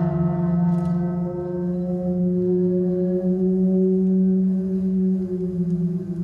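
Music: several low, ringing, bell-like tones left sounding after strikes just before, held steadily with a slight waver, the higher tone sagging in pitch near the end.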